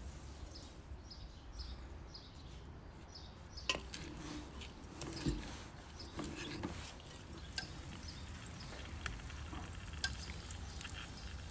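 A grain salad with corn and chopped peppers being stirred and tossed in a glass bowl: soft scraping and rustling, with a few sharp clicks of the spoon against the glass.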